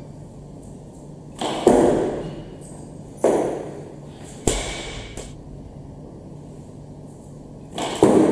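Loaded barbell rattling and clanking, with the lifter's shoes slapping the platform, through a snatch and a further lift overhead. There is a loud impact with ringing about a second and a half in, two sharper ones near three and four and a half seconds, and another loud one near the end.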